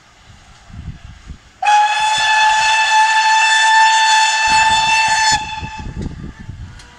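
Steam locomotive whistle sounding one long, steady blast of about four seconds, followed by low chuffing as the train moves off.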